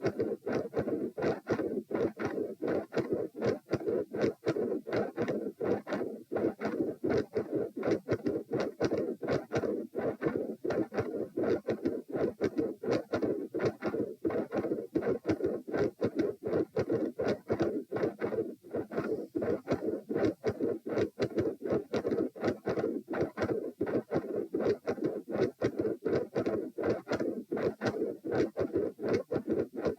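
Recorded heart sounds: a regular train of short heartbeat thuds over a continuous rushing murmur. The uploader likens it to the machinery-like murmur of a PDA (patent ductus arteriosus), with a murmur over the second heart sound (S2).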